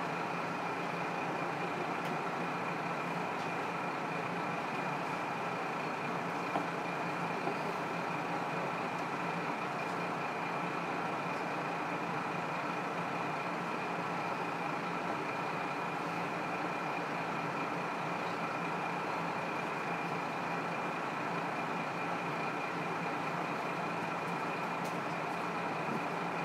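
Onboard running sound of a KiHa 54 diesel railcar under way, heard from the seat directly over its engine with the window slightly open. The engine drone and the running noise of the train hold steady, with steady high tones. There are a couple of faint clicks about six and seven seconds in.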